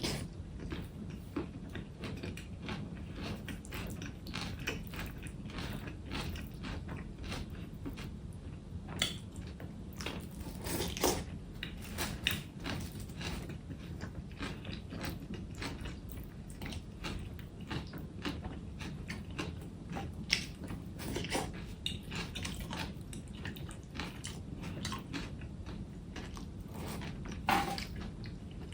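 A person biting and chewing food close to the microphone, with many short crunches and clicks scattered throughout over a steady low hum.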